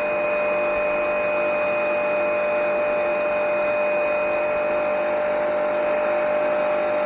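Electric pressure washer running steadily with a constant whine, its narrow, high-pressure jet hissing as it blasts black mold stains off concrete. The higher part of the whine fades out about two-thirds of the way through.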